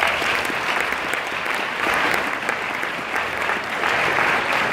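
Audience applauding, a dense even patter of many hands clapping.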